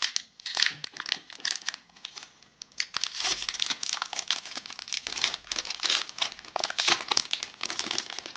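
Foil Pokémon booster pack wrapper crinkling and tearing as it is opened by hand, a dense run of crackles with a short lull about two seconds in.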